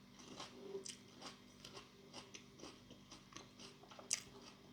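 Quiet, close-up chewing of a mouthful of pepper, with soft irregular crunches and a sharper crunch about four seconds in.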